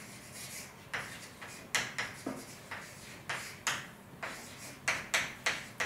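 Writing on a board: a string of short scratchy pen or chalk strokes, one or two a second.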